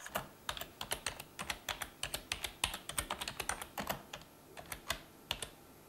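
Typing on a computer keyboard: a quick, irregular run of key clicks that stops shortly before the end.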